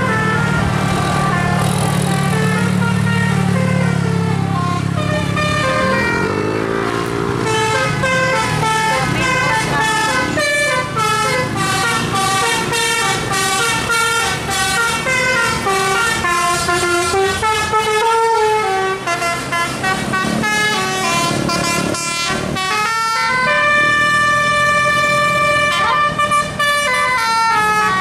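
Tour bus 'telolet' air horn, a Basuri multi-trumpet horn driven by a DAV melody module, playing a quick run of stepped musical notes as a tune. The notes change several times a second, with one longer held note near the end.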